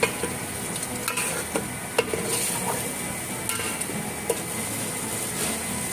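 Chicken pieces in a thick onion-and-yogurt masala sizzling in a pot over medium flame while a metal spoon stirs them, with a few sharp clicks of the spoon against the pot.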